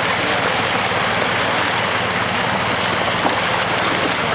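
Water rushing out of a fish-stocking truck's tank and down the release slide in a steady gush, with the truck's engine running underneath as a low hum.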